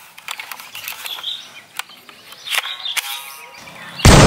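Scattered light clicks as a plastic toy Dragunov SVD sniper rifle is handled, then near the end a single loud gunshot bang as it is fired.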